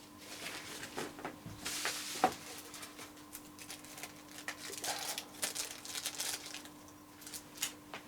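Crinkling, rustling handling noise with scattered small clicks, and one sharper click a little over two seconds in, over a faint steady hum.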